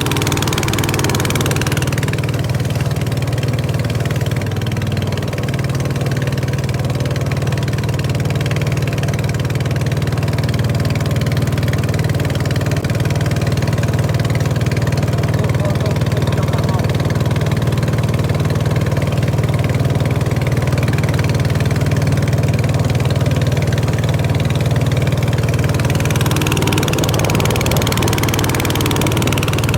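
Small boat's engine running steadily under way, a low continuous drone, with a hiss of rushing water above it that grows louder near the end.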